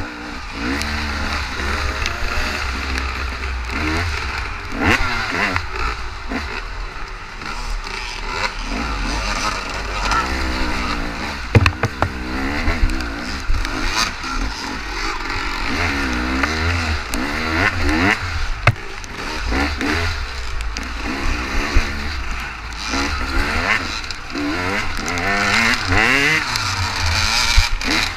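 Honda XR400 dirt bike's single-cylinder four-stroke engine under race throttle, its pitch rising and falling over and over with throttle and gear changes, over a steady low rumble. Sharp knocks from the bike over rough ground, the loudest about halfway through.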